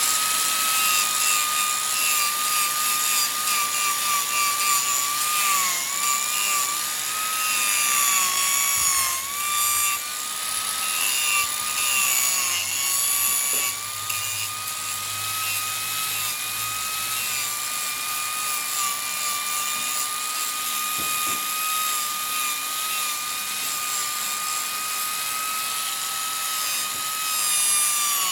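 A small high-speed power-tool motor whining steadily at a high pitch, the tone sagging briefly now and then as it takes load.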